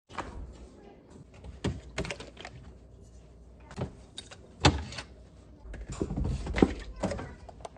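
Irregular knocks, clicks and clatter of groceries and containers being handled and set down, with the loudest knocks a little under five seconds in and at about six and a half seconds.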